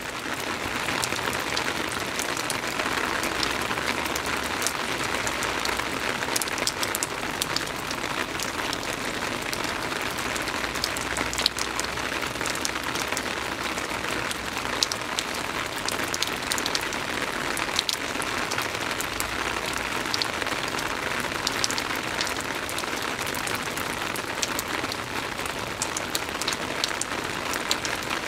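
Soft rain falling steadily: an even hiss scattered with small drop taps.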